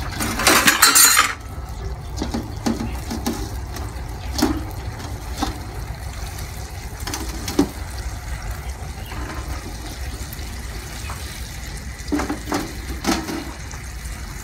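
Fried pomfret pieces going into a metal kadai of simmering curry gravy, with a loud burst of splashing about a second long at the start. Then scattered clinks and knocks of a spatula against the pan, over a low steady hum.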